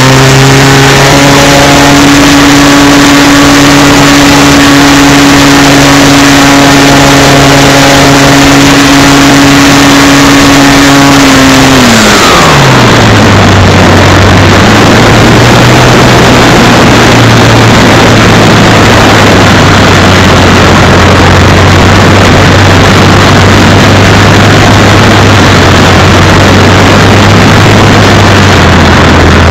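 RC model Cessna's propeller motor, picked up by the onboard camera and recorded loud and distorted, running at a steady high pitch. About twelve seconds in the pitch falls sharply as the throttle is pulled back, and it then holds a lower steady drone as the plane descends.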